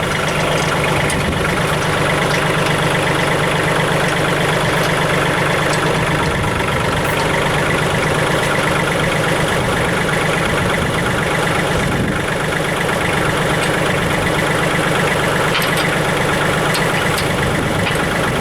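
Kubota L3800 tractor's three-cylinder diesel engine running steadily.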